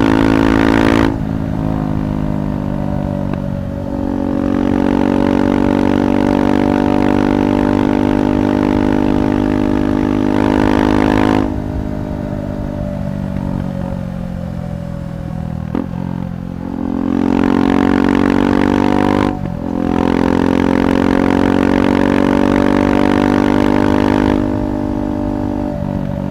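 KTM 390 Adventure Rally's single-cylinder engine through a Red Rooster aftermarket exhaust while riding, alternating between louder throttle-on stretches and quieter throttle-off stretches where the note drops. There is a brief dip in the engine note about three-quarters of the way through.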